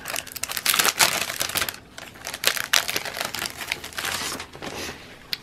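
Clear plastic sticker sleeve crinkling and rustling as it is handled, denser and louder in the first two seconds, then lighter rustles.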